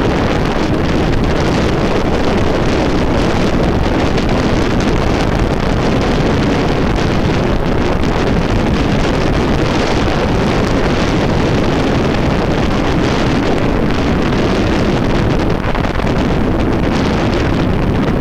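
Wind rushing hard over a handlebar-mounted camera's microphone on a bicycle descent into a headwind: a loud, steady, rumbling rush with no let-up.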